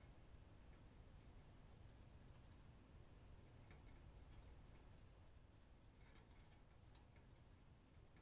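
Near silence, with faint, intermittent scratching and rustling from a pet hamster moving about its cage.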